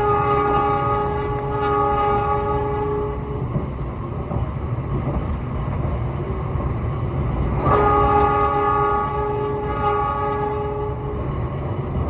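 Locomotive horn of a moving passenger train sounding in two long blasts: one that stops about a third of the way in, and another that starts about two-thirds of the way through, over the train's steady low running rumble.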